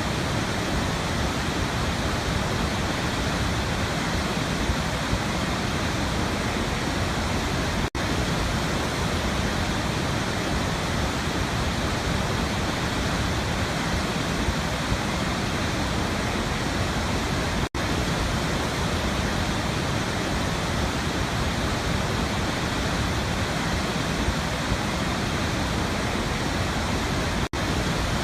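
Waterfall: a steady, dense rush of falling water, interrupted by a momentary dropout three times, about every ten seconds.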